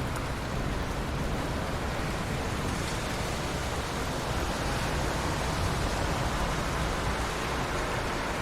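Steady rushing wash of heavy rain and running water, with a deep low rumble underneath.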